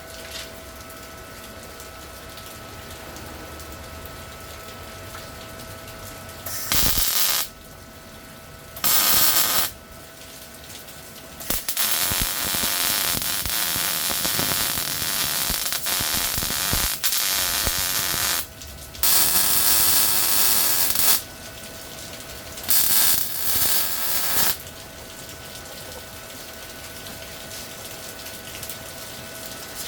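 MIG welder arc crackling in a series of bursts: two short ones, a long run of about seven seconds, then two more of a few seconds each, each starting and stopping sharply, over a faint steady hum.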